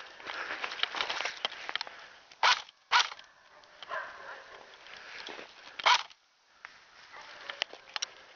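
Footsteps crunching through snow with rustling of clothing and gear, broken by three short, loud sharp sounds about two and a half, three and six seconds in.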